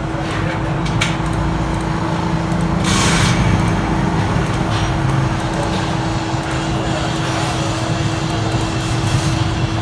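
Steady mechanical hum with a constant low tone over a low rumble, a brief hiss about three seconds in.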